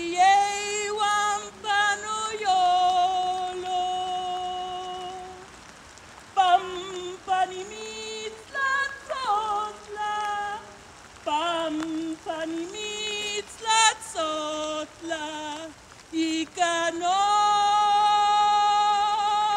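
A woman singing a Náhuatl song solo and unaccompanied, in a full voice with vibrato, in phrases separated by short breaths. There are long held notes a few seconds in and again near the end.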